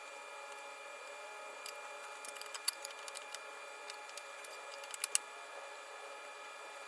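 Scattered sharp clicks and clacks of wood pieces and clamps being handled while the flag is glued up and clamped, bunched in the middle seconds with the loudest two near the middle and toward the end. A steady hum runs underneath.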